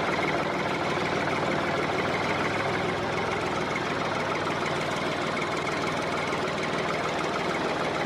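Tractor engine running steadily, a dense even chugging with no change in speed.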